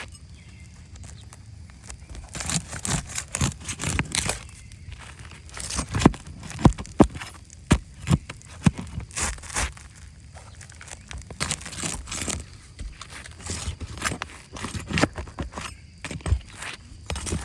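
Irregular clattering knocks and scrapes in busy clusters, as of hands and tools working on the repair, with a few sharper loud knocks in the middle.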